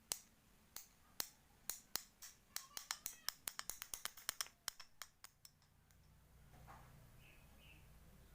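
A run of sharp snapping clicks, sparks jumping from a homemade CDI ignition, spaced out at first and then coming faster before stopping about five and a half seconds in; a low hum follows.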